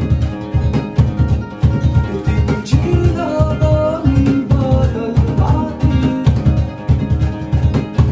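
Two acoustic guitars playing together while a man sings, over a steady low hand-drum beat.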